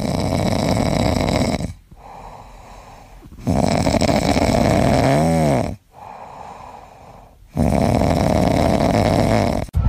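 A sleeping cat snoring: three long snores, each about two seconds, with quieter breaths between them.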